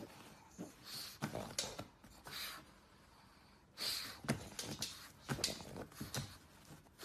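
A pug snorting and snuffling in short, irregular breathy bursts.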